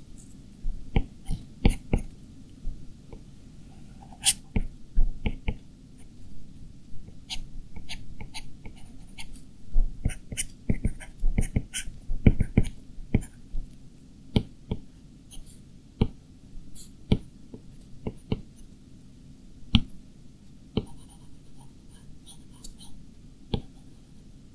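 A stylus tip tapping and stroking on the glass screen of a 12.9-inch iPad Pro while drawing: irregular sharp taps, several a second at times, with short scratchy strokes between them.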